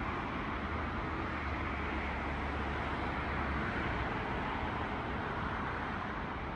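Steady hiss and rumble of distant traffic, with a low hum under it that stops about three and a half seconds in.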